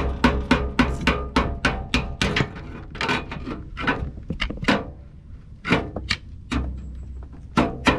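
Rapid hammer blows on a steel pry bar set against the notches of a CV axle's inner joint, about four strikes a second with metallic ringing, to knock the axle out of the front differential. The strikes pause briefly about five seconds in, then start again.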